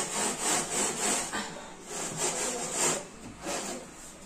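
Hand scrubbing of the greasy underside of a stainless-steel kitchen chimney hood, a pad rubbed back and forth in even strokes about three a second. The strokes grow softer after about three seconds.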